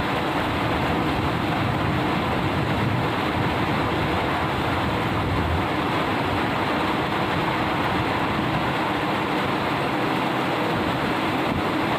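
Steady rain falling, an even hiss with no letup.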